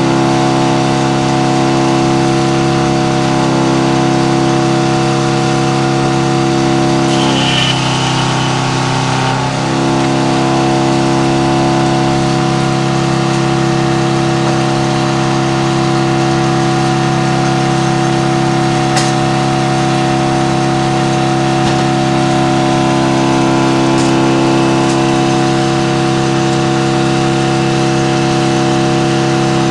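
The engine powering a Frick No. 00 circle sawmill, running steadily at a constant speed, with its note wavering briefly about seven seconds in.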